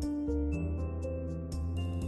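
Background music: soft new-age instrumental with sustained keyboard notes, a steady low bass and a light ticking beat.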